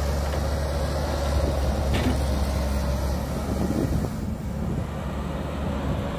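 Cat 312B tracked excavator's diesel engine running under load as the machine dumps a bucket of soil into a dump truck and swings back to dig, with a short knock about two seconds in. The engine sound eases about four seconds in.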